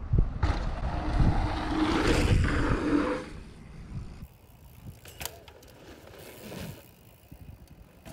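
Mountain bike rolling fast down a dirt jump line: a rush of tyre noise on dirt and air for about three seconds, with wind buffeting the microphone at the start. It then goes quieter, with a few sharp clicks and knocks from the bike around the middle.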